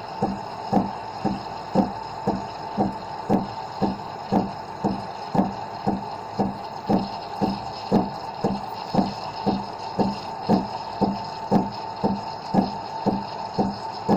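Espresso machine steam wand frothing milk in a stainless steel pitcher. It hisses steadily with a regular pulse about twice a second.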